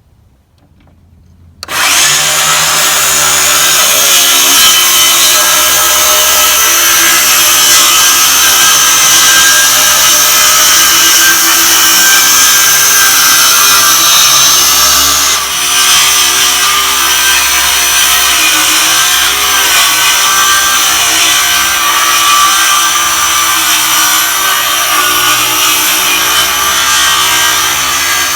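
Power saw ripping a 1x4 pine board lengthwise, starting about two seconds in and running steadily through one long cut, with a brief dip about halfway through.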